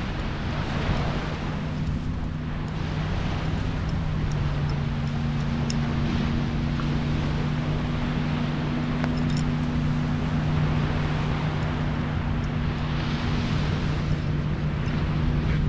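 A steady low engine hum from an unseen motor, holding two even tones and growing a little stronger about a third of the way in, over a continuous wash of surf.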